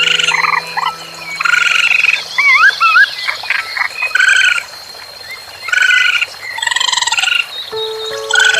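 Repeated croaking animal calls of about half a second each, with a few quick rising-and-falling whistled chirps about two to three seconds in. Soft background music fades out about a second in and comes back near the end.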